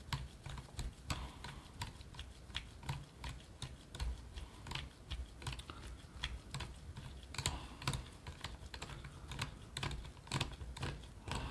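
Hand screwdriver driving a long screw into a V2 airsoft gearbox shell: a string of irregular small clicks, a few a second, as the driver is turned and regripped.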